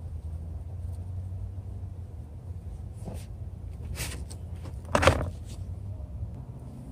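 A steady low rumble with a few brief rustling noises, the loudest about five seconds in.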